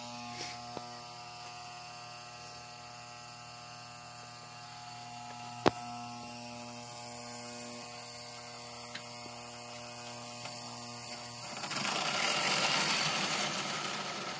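Electric toy-train transformer and powered track humming steadily, with one sharp click about halfway. Near the end the toy locomotive's electric motor whirs for a couple of seconds.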